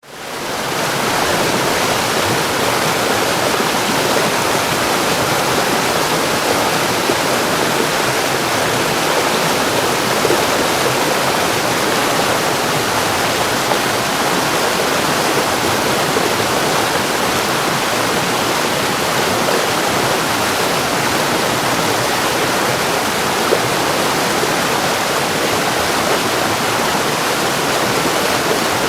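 Waterfall: water pouring and splashing in a dense, steady rush that fades in over the first second.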